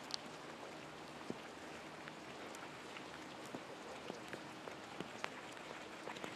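Faint outdoor ambience of light rain: a steady hiss with scattered drops ticking now and then.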